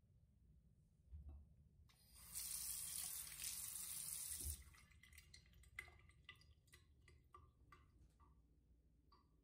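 Bathroom washbasin tap turned on, its water stream running into a ceramic basin for about two and a half seconds before it is shut off abruptly. A few faint ticks follow.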